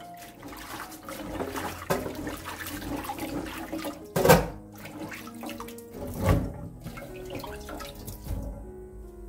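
Water sloshing and splashing as cut garlic scapes are rubbed and rinsed by hand in a stainless-steel bowl of water, with two louder splashes about four and six seconds in. Background music plays underneath.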